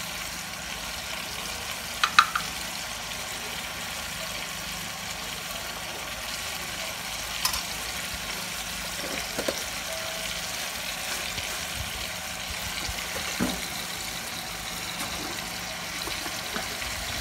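Steady hiss of a pot of meat in tomato sauce cooking on a gas burner, with a few light clicks and knocks, the sharpest about two seconds in.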